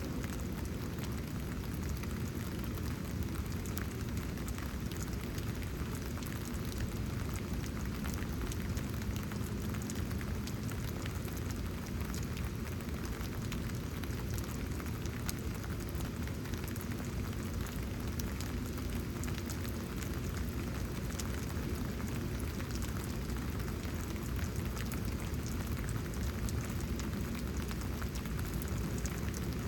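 Steady rain falling, with many small drop ticks scattered through an even hiss.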